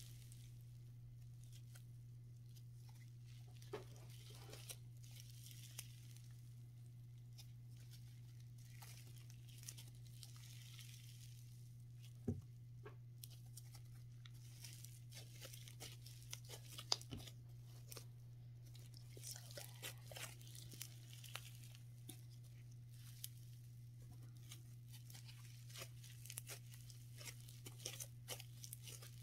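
Fluffy, stringy matcha green tea slime being stretched, pulled apart and squished by hand: faint soft tearing and crackling with scattered clicks, and a couple of sharper pops about 12 and 17 seconds in. A steady low hum runs underneath.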